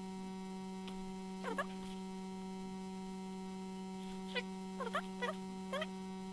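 Steady electrical mains hum in the recording. Over it come a few brief, faint strokes, once about a second and a half in and several more between about four and a half and six seconds in, as a pen writes on a graphics tablet.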